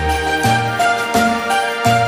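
Instrumental background music with a steady beat and a bass line that moves to a new note with each beat.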